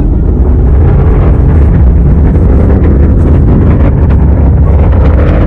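Roar of an Atlas V 511 rocket climbing after launch, its RD-180 main engine and single solid rocket booster heard from a distance as a loud, steady low rumble with crackling through it.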